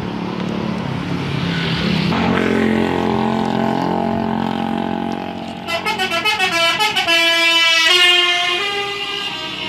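A bus's 'telolet' multi-tone horn playing a tune of pitched notes that step up and down. A little past halfway it sounds a quick stuttering run of about six notes a second, then longer held notes at changing pitches.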